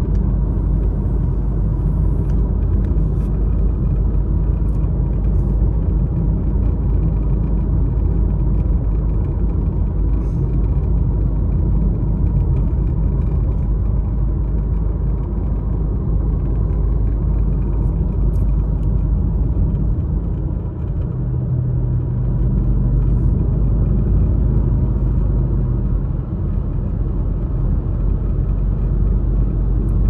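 Steady road and engine rumble of a car driving along a highway, heard from inside the cabin, with a faint constant whine. About two-thirds of the way through, a deeper hum swells for a few seconds.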